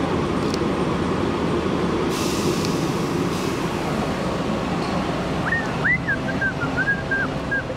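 City street traffic with a large vehicle, such as a bus, running close by: a steady low engine rumble, a brief airy hiss about two seconds in, and a wavering high-pitched squeal in the last couple of seconds.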